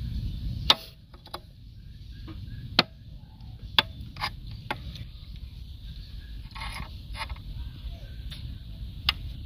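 Sharp metal clicks and clinks of a steel rod and a brake caliper knocking together as the caliper is handled, a few strong clicks spread through it, the loudest about a second in.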